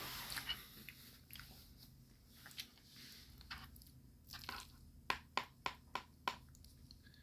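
A person chewing a mouthful of spicy noodles close to the microphone, with wet mouth sounds and scattered short clicks, including a quick run of five sharp clicks near the end.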